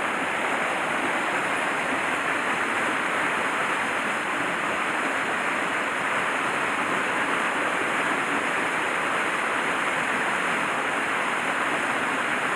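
Mountain stream water rushing steadily, an even, unbroken rush.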